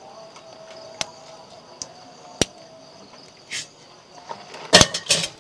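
Small open wood fire being poked with a stick: a few single sharp cracks and knocks, then a louder quick run of knocks near the end, over a steady high chirring in the background.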